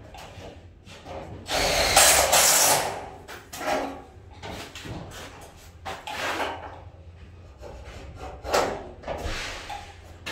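Cordless drill running in one loud burst of about a second and a half, then several short knocks and scuffs of work on the steel frame.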